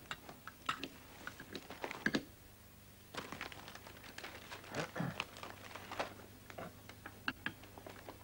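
Scattered light clinks and taps of cutlery on plates, with the rustle of a newspaper being handled.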